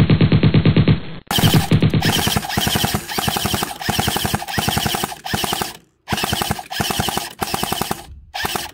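Battery-powered airsoft MK46 light machine gun firing fully automatic: a rapid, even chatter of the electric gearbox cycling. It fires in a long stream, then breaks into short bursts of about half a second each near the end.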